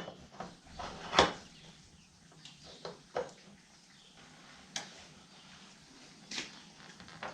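A few separate sharp clicks and knocks, the loudest about a second in, from a sawmill bandsaw blade being handled in a tooth setter.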